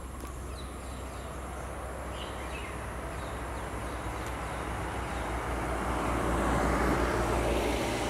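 Rushing noise of a passing motor vehicle that swells slowly and peaks near the end.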